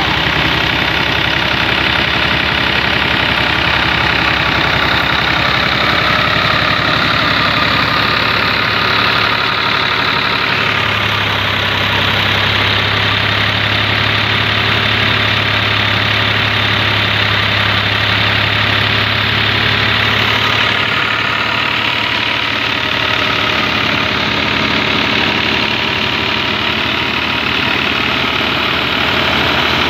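A New Holland 480 tractor's diesel engine runs steadily under load, powering a wheat thresher through its PTO shaft, mixed with the thresher's own running noise. A deeper steady drone from the engine comes up for about ten seconds in the middle, then drops back.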